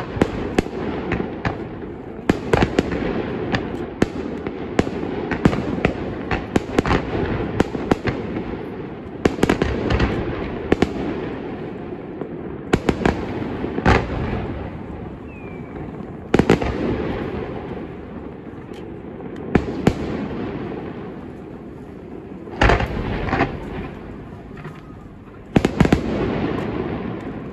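Aerial fireworks display: a dense run of bangs and crackles for the first dozen seconds, then fewer, louder shell bursts every two to three seconds, each trailing off in a rolling echo.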